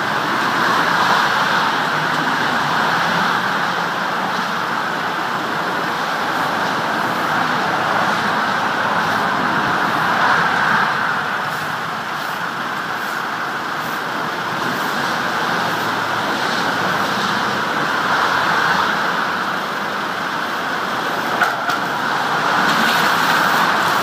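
Steady motorway traffic noise: cars and vans passing at speed, the tyre-and-wind rush swelling and easing every few seconds, with one short sharp knock near the end.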